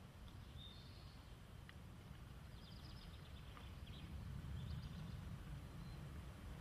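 Faint outdoor ambience: a steady low rumble with small birds chirping now and then, including a quick run of chirps about three seconds in.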